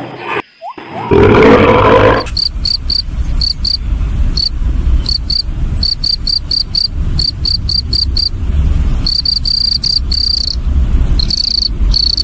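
A loud animal roar for about the first two seconds, then a cricket chirping: a string of short, high chirps, about three a second with brief pauses, over a low rumble.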